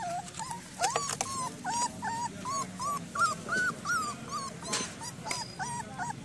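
Young puppy whimpering in distress, a rapid run of short, high crying yelps, about three a second, as it calls for help while stuck in a pile of branches.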